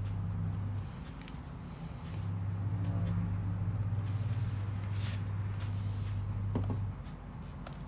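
A low steady hum that cuts out briefly about a second in and again near the end. Over it are a few faint light knocks and rubbing from a new Dell laptop's metal casing being turned over and stroked by hand.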